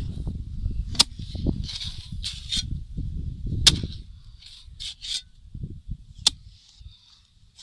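Metal hoe blade chopping into clay soil, three sharp strikes about two and a half seconds apart, with softer scraping and crumbling of loosened earth between them. Wind buffets the microphone underneath as a low rumble.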